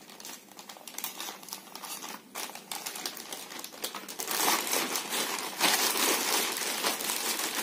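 A plastic courier mailer bag being slit with a small blade, giving faint scattered crackles. From about four seconds in comes louder, continuous crinkling and rustling of the plastic as the bag is pulled open and a cardboard box is slid out of it.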